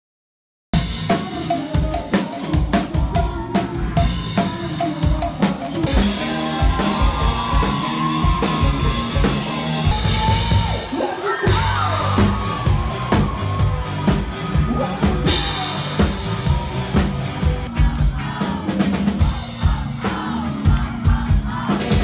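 Rock band playing live, driven by a hard-hit drum kit with bass drum and snare. The music cuts in suddenly just under a second in, after silence.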